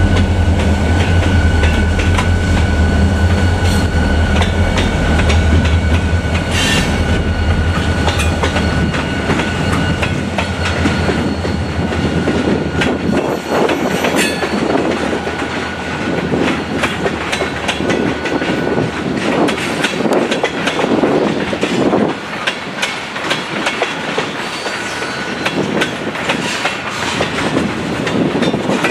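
Two EMD SD40-2 diesel locomotives, each with a 16-cylinder two-stroke engine, pass with a deep engine rumble that fades over the first ten seconds or so. Then freight cars roll by with a steady clickety-clack of wheels over the rail joints.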